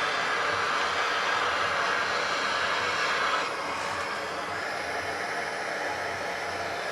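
Handheld gas plumbing torch flame hissing steadily while heating a copper pipe joint for soldering; it becomes quieter about three and a half seconds in.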